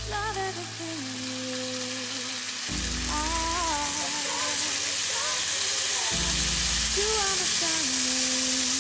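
Bacon strips sizzling as they fry in a hot frying pan. The sizzle grows steadily louder as more strips are laid in.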